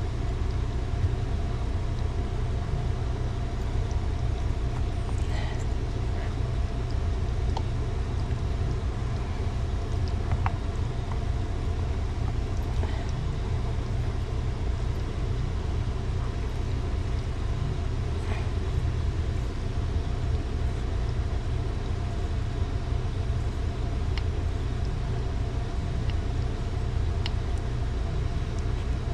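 A steady low mechanical drone with a faint hum runs throughout, with a few faint light clicks now and then from small parts being handled while a rubber impeller is worked into a water pump.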